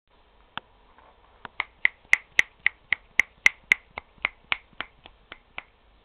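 A person making quick sharp clicks, about four a second, some eighteen in a row, loudest in the middle of the run and stopping shortly before the end.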